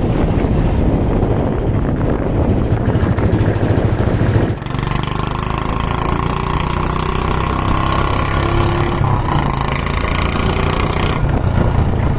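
Royal Enfield Bullet's single-cylinder engine running very loud through a six-foot-long straight Punjabi silencer, a rapid stream of exhaust pulses. About four and a half seconds in, the sound cuts to a steadier running note with more hiss.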